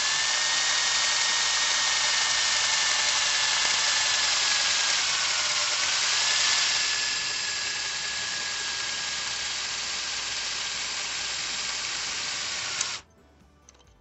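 Electric drill running a 5/32-inch bit through the pin in the steel end eye of a hydraulic roof lock cylinder, a steady whine. Its pitch dips briefly about halfway through, and it stops suddenly about a second before the end.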